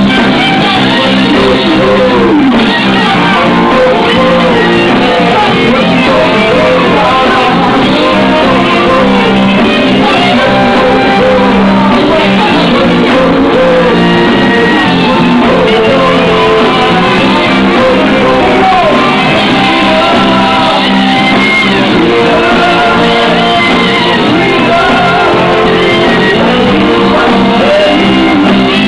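Live rock band playing loud and steady, with a singer's voice over the instruments.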